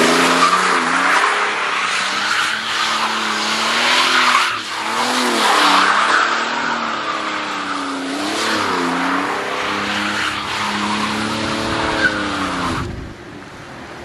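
1986 Pontiac Fiero GT kit car doing donuts on wet asphalt: tires squealing and skidding while the engine revs up and down again and again. The noise drops away suddenly about a second before the end.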